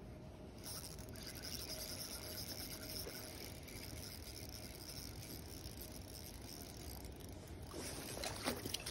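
Spinning reel being cranked steadily as a hooked trout is played in, with the trout splashing at the water's surface near the end.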